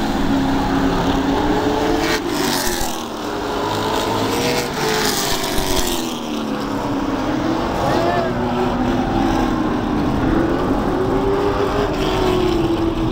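Several stock car engines racing around a short oval track. Their notes overlap and rise and fall as the cars accelerate and back off through the turns.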